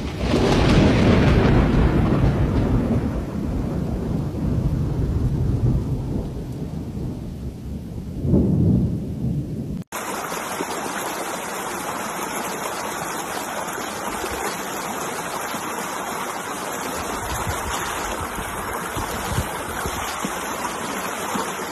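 Muddy floodwater rushing in a swollen river. It starts as a deep, rumbling rush, then a sudden cut about ten seconds in brings a steadier, brighter hiss of a torrent surging close by.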